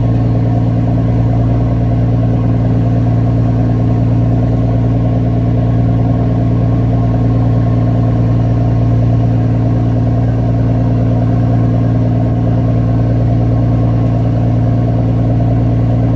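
Engine of a small boat under way, running steadily at constant speed: a loud, even hum with a strong low tone.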